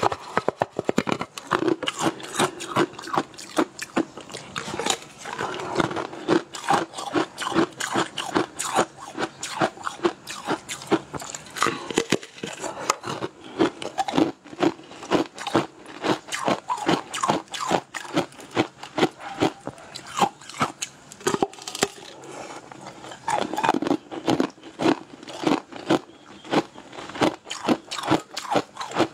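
Close-up eating of a translucent blue fish-shaped sweet: biting and crunching with a steady run of sharp crunches and mouth clicks, several a second.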